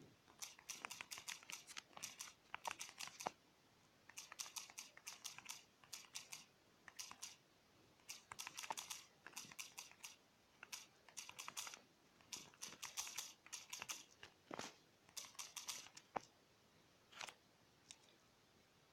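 Faint quick taps of typing on a smartphone's touchscreen keyboard, in bursts of several taps separated by short pauses.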